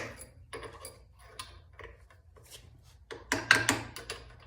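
Hammer striking a punch against a motorcycle clutch centre to drive its inner piece round: a few faint taps, then a quick run of about five sharp strikes a little past three seconds in.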